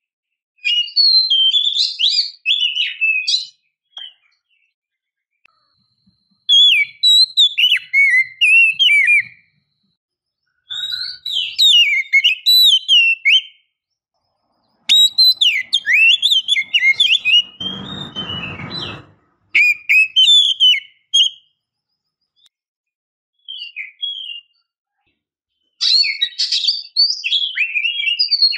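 Oriental magpie-robin (kacer) singing in bursts of rapid, varied whistled notes, each phrase lasting one to three seconds with short pauses between.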